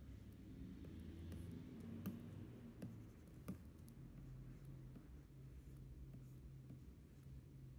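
Faint stylus strokes on a pen display's glass screen, with a few light taps about two to three and a half seconds in, over a low steady hum.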